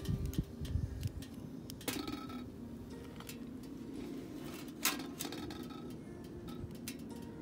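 A blackened metal pot being handled on top of a homemade sheet-metal wood stove, with a few dull knocks at the start and sharp metal clinks about two and five seconds in, over faint crackling of the wood fire.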